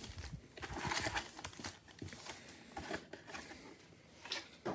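Foil-wrapped trading-card packs being taken out of a cardboard box and set down in a stack: irregular soft rustles and light knocks, with one sharper tap near the end.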